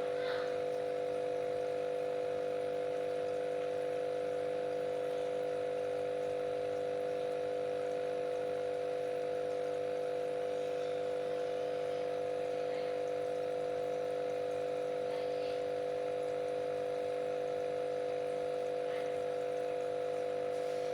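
Steady electric hum of an aquarium pump, with faint trickling water and a few faint drips.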